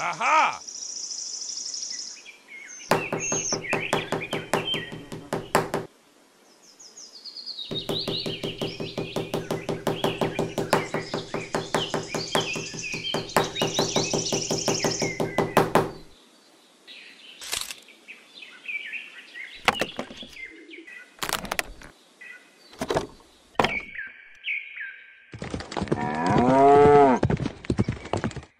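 Rapid, even tapping at about five taps a second, in two long runs with a steady hum under it, as a small hammer drives miniature posts into sand, with birds chirping over it. A few single knocks follow, and a cow moos loudly near the end.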